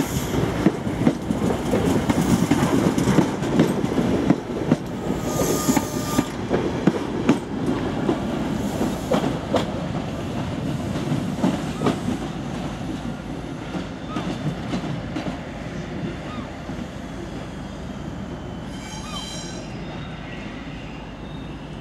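Night Riviera sleeper's Mark 3 coaches rolling out over the rail joints, wheels clicking and rumbling, the sound fading steadily as the train draws away. A brief high squeal comes near the end.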